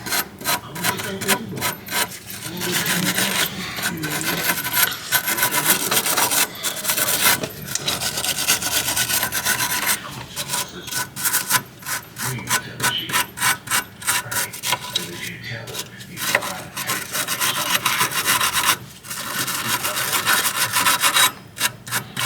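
Hand scrubbing or scraping of rust and dirt off the hub mounting surface during a wheel hub replacement. It goes in rapid back-and-forth strokes, in runs broken by short pauses.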